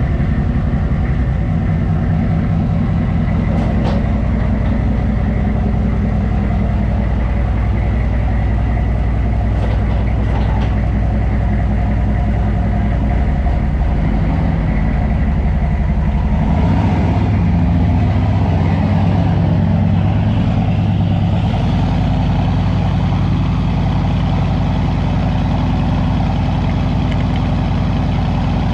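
Chevrolet K2500's 6.5-litre turbo-diesel V8 running at idle through a 4-inch straight-pipe exhaust, warming up after a cold start. The note is steady, except that from about halfway through it deepens and grows a little louder for a few seconds before settling again.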